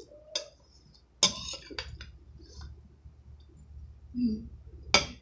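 Metal fork clicking against a ceramic bowl while food is scooped and eaten, with close-up mouth and chewing sounds between. A louder burst comes about a second in and a sharp click near the end.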